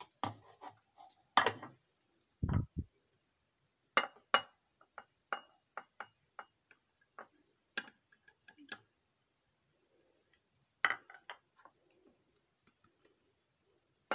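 Small bowls knocking and clinking against a glass jar and a stone countertop as chopped ingredients are tipped in: a scatter of sharp taps and clicks, with one dull thump about two and a half seconds in.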